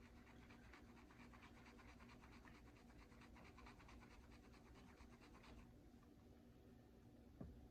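Faint, rapid scrubbing strokes on a Glock pistol barrel, rubbing off its vinegar-softened finish. The scrubbing stops about five and a half seconds in, and a light knock follows near the end.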